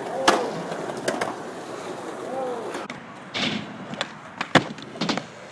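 Skateboard wheels rolling on pavement, with several sharp clacks of the board hitting the ground, and a couple of brief voices calling out in the background.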